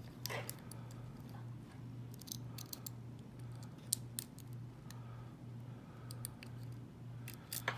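Lock pick and tension wrench working the pins of a Winkhaus euro cylinder lock: scattered light metallic clicks and scrapes, with a few sharper clicks about four seconds in and near the end.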